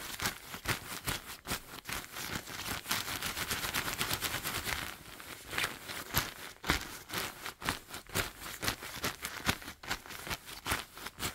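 Shiny quilted puffer jacket crumpled and rubbed by hand, its glossy fabric giving a dense, continuous run of crinkling and crackling.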